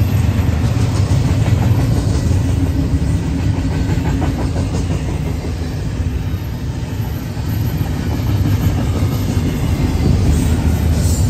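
Double-stack container well cars of a Union Pacific freight train rolling past at speed: a steady low rumble of steel wheels on rail, with repeated clicks as the wheels cross the rail joints.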